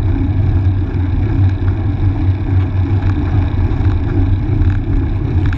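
Steady low rumble of wind and road vibration on the microphone of a camera riding along on a road bicycle, with a few faint light clicks.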